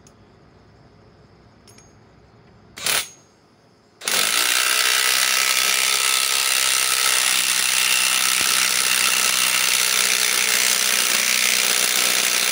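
RIDGID R8721 cordless right-angle impact wrench hammering a 5-inch power lag screw into a wooden log. A brief blip of the trigger comes about three seconds in, then about nine seconds of continuous hammering. The wrench is struggling to drive the lag, which the user puts down to its 4 Ah Max Output battery.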